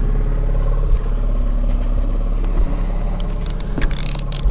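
Boat outboard motor running steadily at trolling speed, an even low hum. A few light clicks come near the end.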